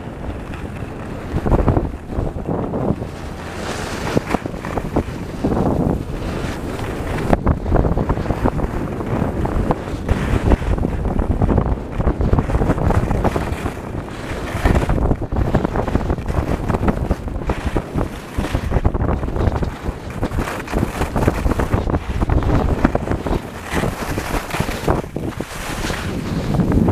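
Wind buffeting the microphone of a camera carried at speed down a ski slope, a loud, unbroken rushing. Under it the scrape of edges carving packed snow swells and fades with each turn.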